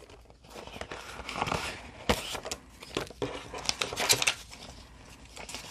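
Paper prop-money bills rustling as they are handled and counted, with the crinkle of a clear plastic binder pouch; a few sharper crackles stand out about two seconds in and again around four seconds.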